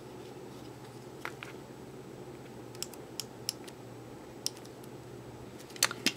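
Scattered light clicks and taps from a small plastic correction-tape dispenser as it is handled and pressed along a notebook page to cover a misspelled word. A low steady hum runs underneath.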